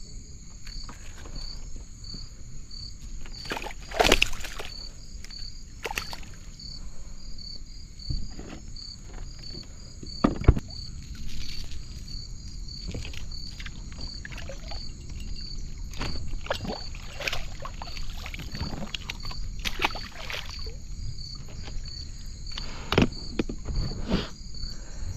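Outdoor ambience of an insect chirping in a steady, even pulse, with scattered knocks and clicks, two of them louder about four and ten seconds in.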